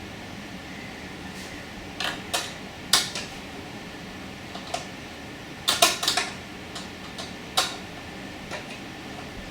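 Irregular small clicks and clatter of hard parts being handled while a desktop PC is assembled, several in quick succession about six seconds in, over a steady low hum.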